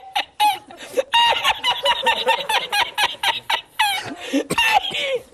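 A man's high-pitched, squeaky laugh in rapid short gasps, about five or six a second, with a few longer falling squeals near the end. This is the wheezing cackle of the well-known laughing-man meme, cut in as a reaction sound effect.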